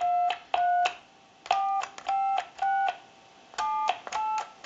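Touch-tone (DTMF) beeps from a Mickey Mouse novelty telephone's manual keypad as its keys are pressed one after another, heard through an amplified pickup on the receiver. Each press gives a short two-pitch beep with a click at its start, about seven in all, in runs of two or three.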